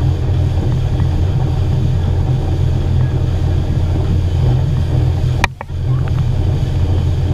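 Boat's outboard motor running steadily at speed, a loud low drone mixed with rushing wind and wake noise. About five and a half seconds in, a sharp click and a brief dropout.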